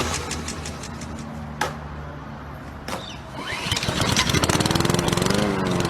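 Small lawn mower engine starting up and running with a fast, pulsing beat that grows louder, its pitch wavering. Two sharp clicks come before it starts.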